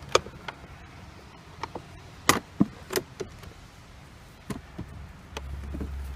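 Scattered sharp clicks and taps of a plastic trim removal tool prying the center-console switch panel of a 2014 Mercedes-Benz S-Class W222 up out of its clips, the loudest a little over two seconds in. A low hum comes in near the end.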